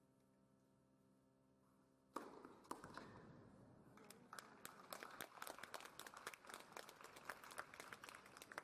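Spectators applauding a tennis point, a dense patter of claps that starts suddenly about two seconds in, after a faint steady hum.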